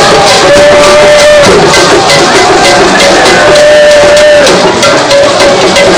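Loud music with drumming and percussion keeping a steady beat, over which long notes are held for about a second at a time, twice.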